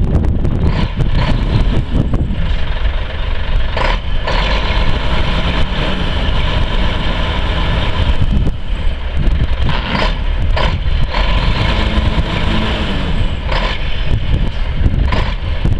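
Mack E6 11.0-litre inline-six diesel engine of a 1986 Mack R688ST truck running steadily with a deep rumble.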